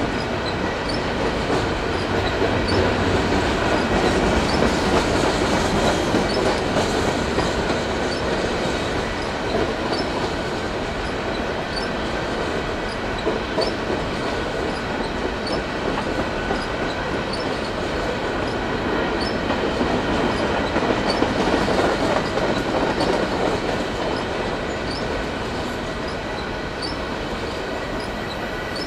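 Empty covered hopper cars of a CPKC grain train rolling past, a steady rumble of wheels on rail with light regular clicking about once a second and a faint thin squeal.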